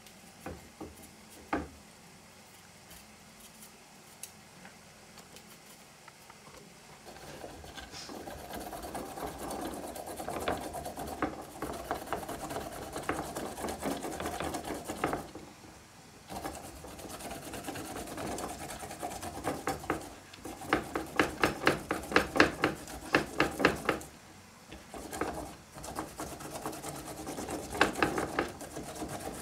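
Food being worked with a kitchen tool in quick, even, repeated strokes, in runs of a few seconds with short pauses. It starts about seven seconds in; before that there are only a couple of light knocks.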